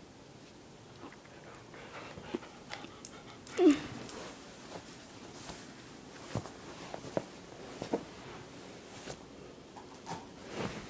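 Portuguese water dog at play, giving one short whine that falls in pitch about a third of the way in, among scattered light taps and knocks.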